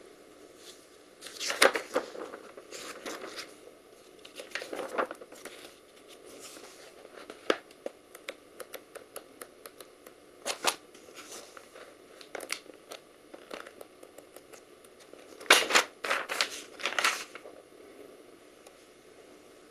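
Fanfold continuous-feed printer paper being handled and its pages flipped over: irregular rustles and crinkles in several separate flurries, the loudest near the end.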